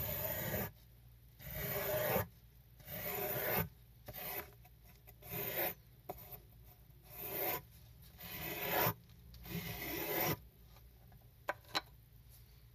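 Small hand squeegee scraped repeatedly across a soaked miniature rug, pushing dirty soapy water off the pile: about eight scraping strokes, roughly one every second and a half, then two brief clicks near the end.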